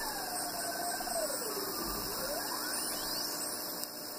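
Homemade transistor regenerative shortwave receiver tuned across a station's carrier with the detector oscillating: a heterodyne whistle falls from a high pitch to a low tone at zero beat about two seconds in, then climbs quickly back up out of hearing, over a steady hiss of static.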